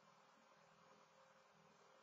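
Near silence: a faint, steady hiss with nothing else happening.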